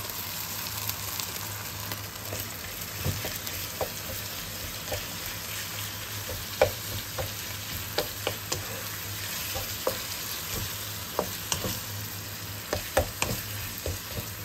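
Minced pork frying in oil with sautéed garlic and onion in a nonstick frying pan: a steady sizzle, while a wooden spatula stirring it scrapes and taps the pan at irregular moments.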